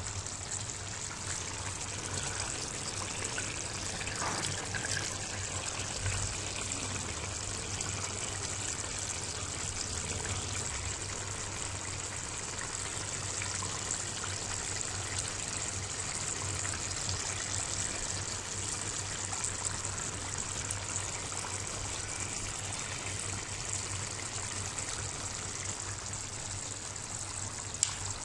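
Palak chicken curry boiling uncovered in a pan: a steady bubbling of the thin gravy.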